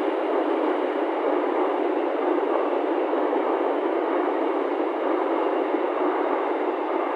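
Passenger coaches of a train passing at speed: a steady rush of wheels rolling on rail.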